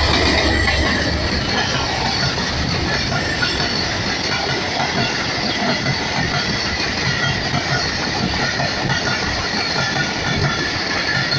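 Mehran Express passenger coaches rolling past close by at speed, with a loud, steady rush of wheel and rail noise. A heavier low rumble eases in the first second as the diesel locomotive moves away.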